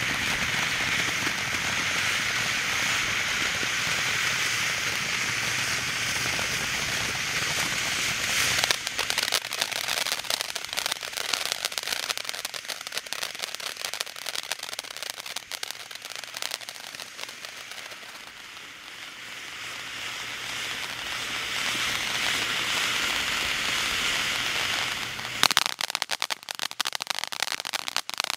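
Red Rhino "Hey There" fireworks fountain burning: a steady, loud hiss of spraying sparks. About nine seconds in it breaks into dense popping crackle from its crackle stars, which thins out as the hiss returns and swells. Near the end a fresh burst of crackling starts.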